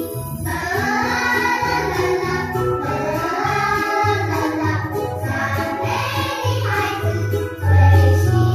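A cheerful Chinese children's praise song playing, with a group of voices singing the melody over a steady pulsing bass beat.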